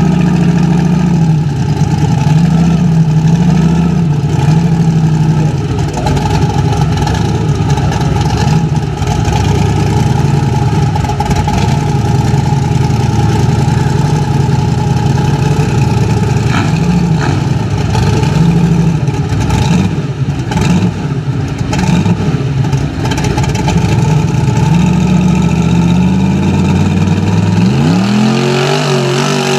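Jeep CJ's engine running at a fast idle with small blips of throttle, then revving up sharply near the end as the Jeep pulls away into the mud.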